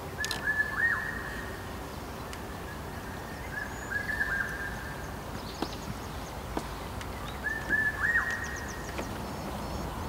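A bird singing a short phrase three times, a few seconds apart, over steady outdoor background noise. A couple of faint clicks fall between the phrases.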